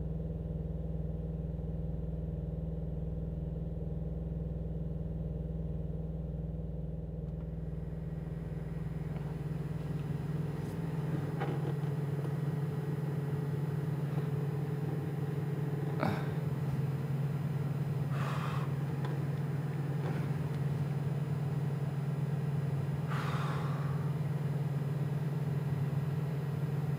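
Steady low mechanical hum inside a parked semi-truck's sleeper cab. A few brief knocks and rustles come as objects on the desk are handled.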